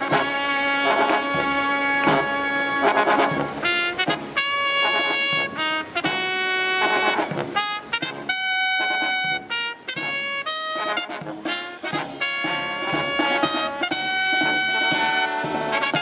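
Marching brass band playing live: trumpets and trombones carry held notes over sousaphones and saxophones, punctuated by snare and bass drum strokes.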